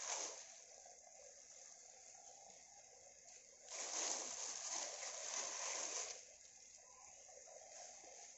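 Granulated sugar being poured into a pan of hot grated bottle gourd and milk, a soft hissing rush. One pour ends just after the start and a second runs from a little under four seconds in for about two and a half seconds, with a faint simmer between.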